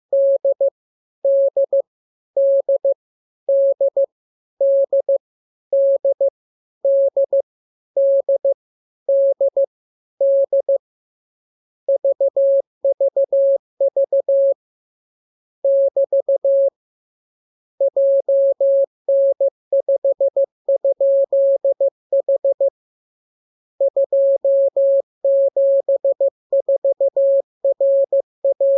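Morse code (CW) tone, a single steady pitch near 600 Hz keyed on and off in dots and dashes. For the first ten seconds or so the same short character repeats about once a second; after that the groups run longer and closer together.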